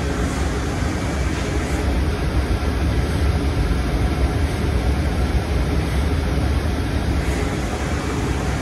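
OPS Ingersoll Speed Hawk 550 high-speed milling machine running with a steady low hum and rumble.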